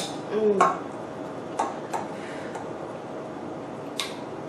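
Eating utensils clicking lightly against a bowl a few times, with a brief falling "mm" from the eater near the start.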